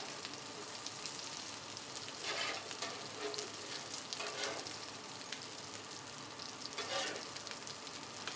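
Food sizzling and crackling on a hot flat-top griddle, with a metal spatula scraping grease and scraps off the cooking surface into a metal bowl. The scrapes come out louder three times, about two, four and seven seconds in.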